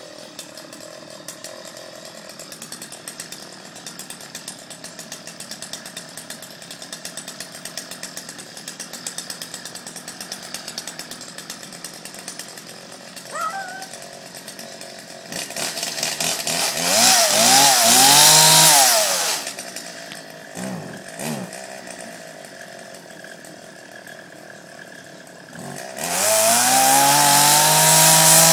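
Gas chainsaw engine idling steadily, then revved hard for about four seconds with the pitch rising and falling. It gives two short throttle blips, settles back to idle, and near the end is opened up to full throttle again, the pitch climbing and holding high.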